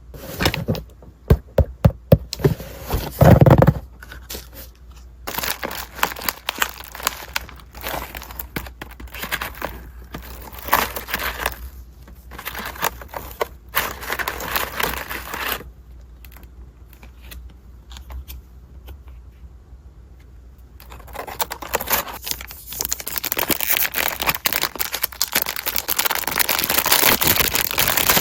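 Packaging being handled and opened: crinkling and rustling of wrapping with tearing sounds, a quick run of sharp clicks and knocks in the first few seconds, and near-continuous crinkling in the last several seconds.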